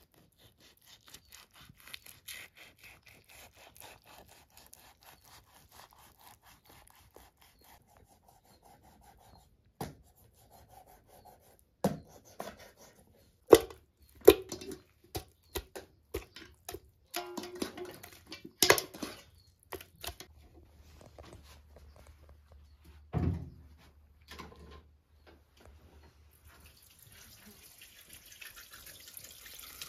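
A knife cuts through raw lamb on a metal tray with a quick run of soft scraping ticks. Then come several hard knocks and clanks as pieces of meat go into a metal cooking pot, some ringing briefly. Near the end, water poured from a kettle starts to splash into the pot.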